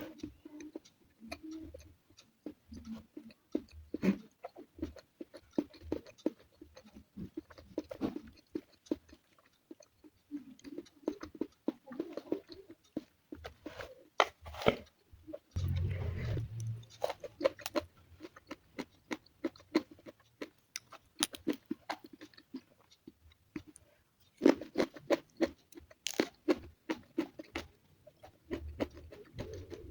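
Close-miked mouth sounds of a person chewing: irregular crunches and clicks of bites of lalapan, raw and steamed vegetables eaten with grilled chicken. The crunching comes thicker about halfway through and again near the end.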